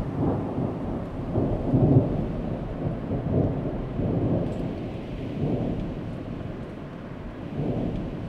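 Thunderstorm sound effect: rolling low rumbles that swell and fade several times over a steady rain-like hiss.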